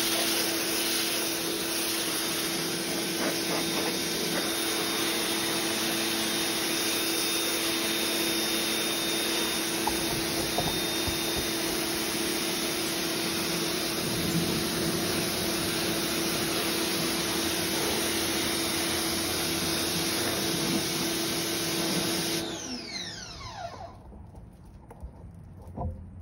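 Ryobi 1600 PSI electric pressure washer running steadily, its motor and pump humming under the hiss of the 15-degree spray jet on brick. About 22 seconds in it stops, and the motor winds down with a falling whine.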